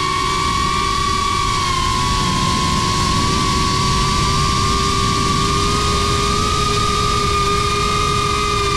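Brushless motors and ducted propellers of a GEPRC Crown HD cinewhoop drone whining steadily in flight. The pitch dips a little about two seconds in, then creeps back up as the throttle changes.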